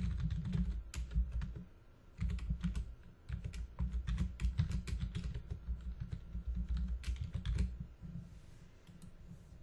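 Typing on a computer keyboard: quick runs of key clicks with dull low thuds under them, a short pause about two seconds in, and a few scattered keystrokes near the end.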